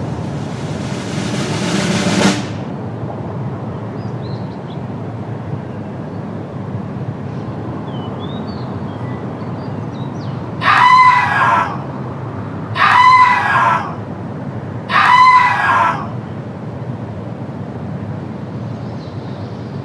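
Three loud crowing cries, like a rooster's crow, about two seconds apart and each about a second long: the cartoon aliens' shriek sound effect. Steady background noise runs under them, with a rushing noise in the first two seconds.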